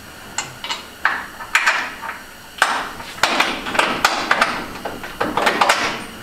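Irregular metallic clanks and knocks with stretches of scraping as a GM stock lower control arm with its bushings is worked by hand into the chassis mounting horns, a tight fit.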